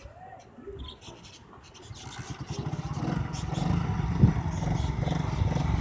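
Old 70cc motorcycle engine comes in about two seconds in and runs with a fast, low, even beat, growing louder over the next second and a half and then holding steady. A sharp knock stands out about four seconds in.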